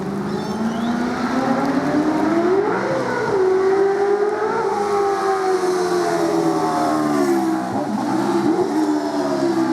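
A V8 Supercar's 5.0-litre flat-plane-crank Mercedes-Benz V8 (HWA-developed M159 variant) climbing in pitch under acceleration, with a shift about three seconds in. Its pitch then falls steadily for several seconds, with a brief rise and fall near the end.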